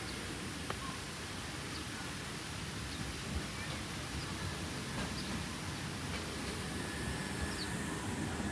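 Steady outdoor street ambience: an even background wash of city noise, with a few faint bird chirps and an occasional click.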